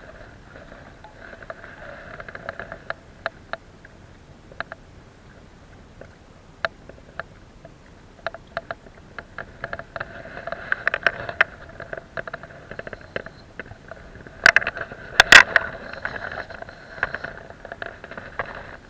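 Handling noise from a body-worn camera as the wearer moves and crouches on concrete tetrapods: rubbing with irregular clicks and knocks, busier in the second half, with a cluster of loud knocks a few seconds before the end.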